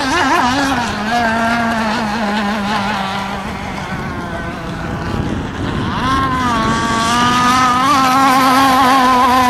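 Zenoah 29.5 cc two-stroke petrol engine of a radio-controlled racing boat running flat out. It is a loud, high buzz whose pitch wavers, and it climbs back up about six seconds in and holds steady.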